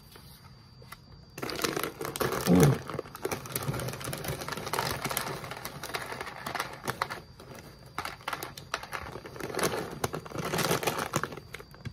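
Plastic snack bag crinkling and rustling as it is handled, with the pretzel sticks inside rattling and clicking against each other. It starts after about a second and a half of near-quiet, and there is a short low sound about two and a half seconds in.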